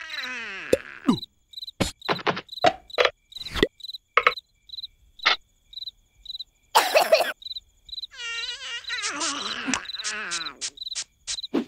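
Crickets chirp steadily, about two chirps a second, as a night ambience bed. Over them come a string of short, sharp cartoon pops and smacks. The larva characters make wordless, pitch-sliding vocal noises in the first second and again from about eight seconds in.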